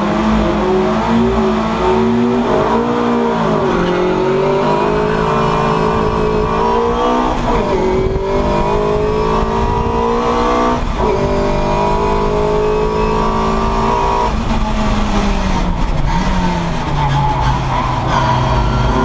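Classic Mini's four-cylinder engine running hard, heard from inside the cabin: the revs climb and drop sharply at upshifts about eight and eleven seconds in, then fall away in steps near the end.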